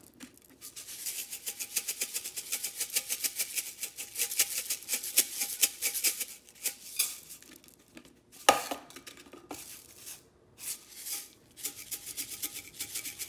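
A nearly empty salt container shaken hard over a mixing bowl, a fast rattling run of strokes, as the last of the salt is coaxed out. About eight and a half seconds in there is one sharp knock, louder than the rest, then more short bouts of shaking.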